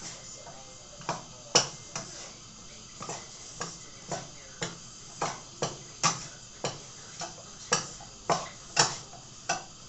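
A spoon knocking and scraping against a cooking pot while a sauce is stirred: a run of sharp, unevenly spaced clicks, about two a second, some with a short ring.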